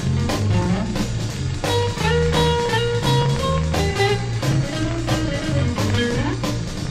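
Early-1960s instrumental rock-and-roll recording: electric guitar playing the melody over a steady bass line and drum kit beat.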